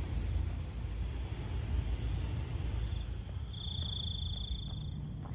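An insect trilling steadily for about a second and a half, starting a little past halfway, over a continuous low rumble.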